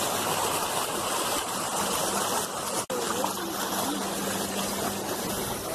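River water rushing and splashing along the hull of a moving tour boat, with the boat motor's faint steady hum underneath.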